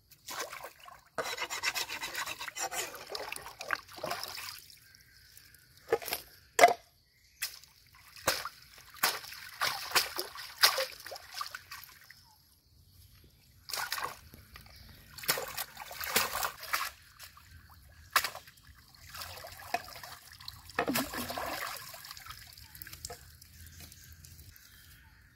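Stream water splashing and sloshing in irregular bursts as a wooden cutting board and then a woven basket of fresh fish are scrubbed and rinsed by hand in the shallows. Two sharp knocks about six to seven seconds in are the loudest sounds.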